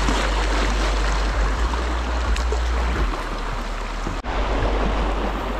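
Fast river current rushing through rapids around a kayak, a loud, steady hiss of moving water with a low rumble underneath. The sound cuts out for an instant about four seconds in.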